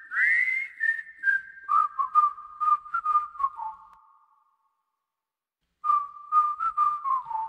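Background music: a whistled tune with light clicks on each note, a phrase that falls in pitch, a pause of about a second and a half, then the next phrase.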